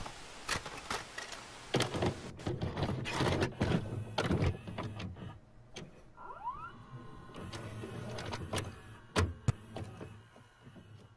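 A VHS video cassette recorder loading a tape and starting to play: a run of mechanical clicks and clunks over motor whirring. There is a short rising whine about six seconds in and two sharp clicks near the end, then the sound fades.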